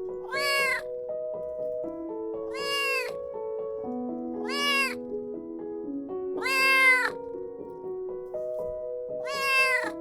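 Kitten meowing five times, each a short high call that rises and falls in pitch, about every two seconds, over background piano music.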